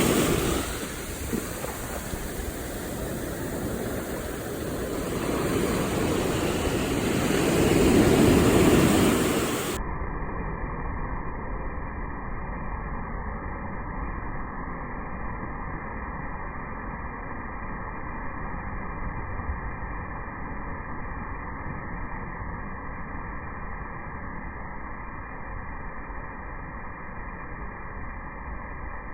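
Ocean surf at Waikiki beach: a continuous wash, with one wave swelling and breaking at about six to nine seconds in. From about ten seconds on, the surf sounds duller and steadier.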